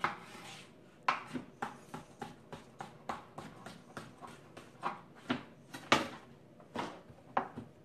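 Chef's knife chopping cucumber on a plastic cutting board: a run of sharp knocks, about three a second, unevenly spaced, as the blade cuts through into the board.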